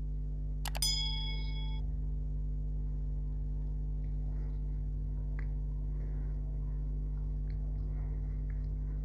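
A click and a bell-like ding, ringing for about a second, about a second in: the subscribe-button animation's sound effect. After that, faint chewing over a steady low hum.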